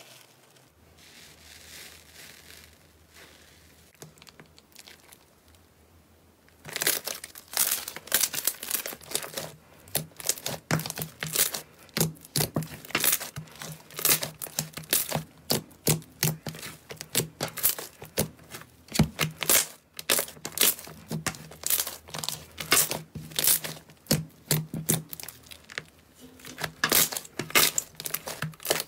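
Thick purple slime being squeezed, folded and stretched by hand, giving off a dense, irregular run of sticky crackles and pops. The crackling starts about seven seconds in, after a quieter stretch of faint handling.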